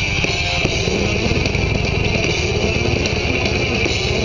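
Rock music with electric guitar playing steadily through 2-inch metal motorcycle speakers, with vehicle engine and road rumble underneath.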